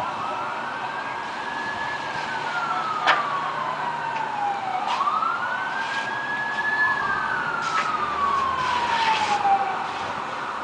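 Emergency vehicle siren on a slow wail, rising, holding, then gliding down, twice, with a second wail overlapping partway. A single sharp click about three seconds in.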